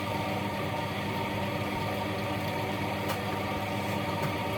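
Steady machine hum made of several even tones, unchanging in level, with a couple of faint short clicks about three and four seconds in.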